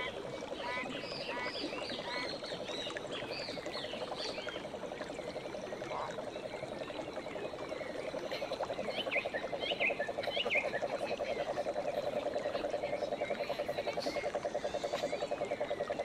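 Bengal cat purring steadily close up while rubbing against a person in an affectionate greeting, the purr growing louder about halfway through. High chirps sound over it, mostly in the first half.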